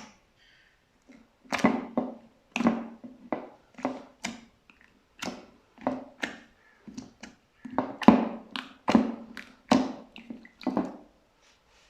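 Slime being pressed and squeezed by hand: a run of short squishes at uneven gaps, stopping about a second before the end.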